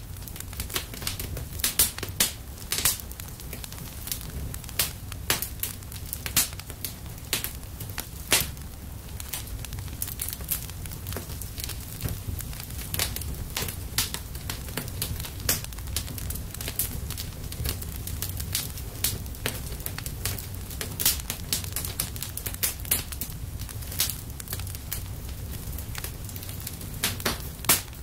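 Fire crackling, with irregular sharp pops and snaps over a low steady rumble.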